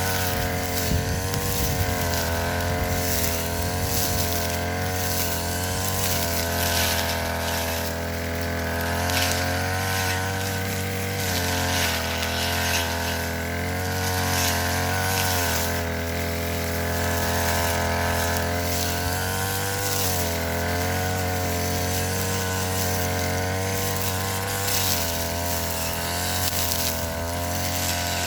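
Ogawa BG430DT two-stroke brush cutter engine running at working speed while cutting grass, its pitch wavering up and down slightly.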